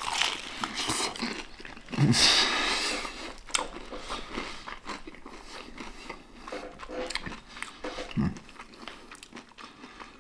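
Close-up crunching bite into crispy battered fried chicken, loudest about two seconds in, followed by chewing with small irregular crackles of the crust.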